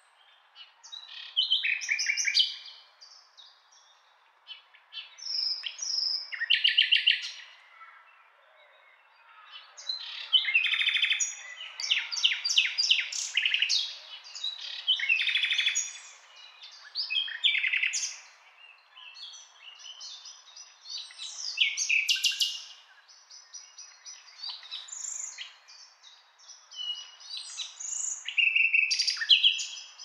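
Common nightingale singing: a run of varied phrases of rapid repeated notes, trills and whistles, each a second or two long, with short pauses between them.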